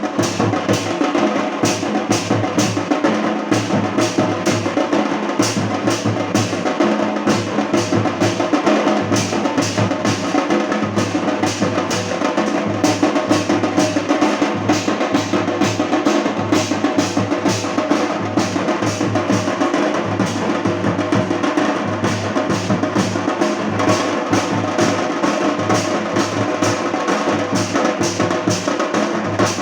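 Loud procession band music led by drums, beating a fast, steady rhythm with sustained pitched tones underneath.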